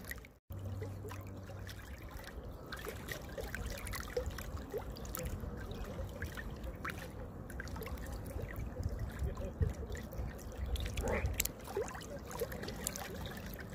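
Small waves lapping and splashing against the bank and the half-submerged branches close to the microphone, an irregular trickling and slapping of water. The sound breaks off briefly about half a second in.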